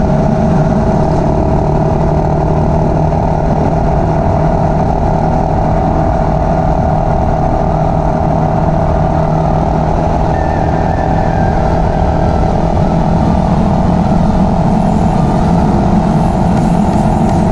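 GPX Legend Gentleman 200's single-cylinder engine running steadily while riding, with wind rushing over the microphone.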